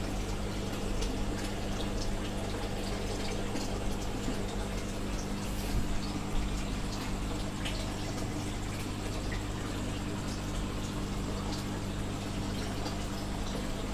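Water running and bubbling into an aquarium tank during a water change, with a steady low hum underneath.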